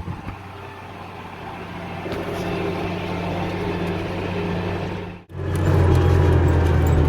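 Farm tractor engine running steadily from the cab while pulling a roller packer. About five seconds in, the sound cuts out for an instant and comes back as a louder, steady engine drone.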